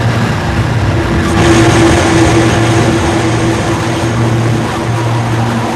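Free-improvised noise music from an Epiphone electric bass run through effects, layered with synthesizers and sampled loops: a dense, droning wash with a steady low hum. A higher held tone and brighter hiss swell in about a second and a half in and ease off a couple of seconds later.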